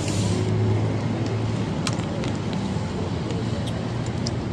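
Steady low rumble of nearby road traffic, with a few light sharp clicks and crinkles as plastic food packaging is handled.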